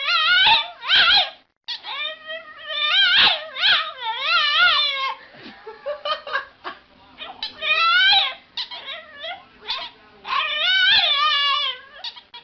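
A domestic animal's repeated wavering, high-pitched cries, one call after another with short pauses between them.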